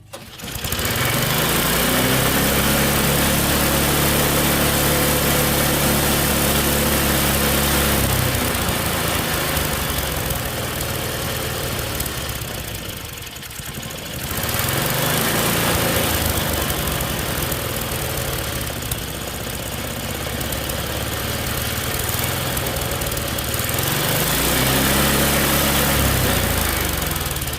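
Tecumseh small engine on a snowblower starting and revving up to a high steady speed, then dropping and surging back up twice before dying down near the end. The engine runs away high because the governor is not holding its speed; the owner traces it to the governor spring hooked into the wrong hole on the carburetor.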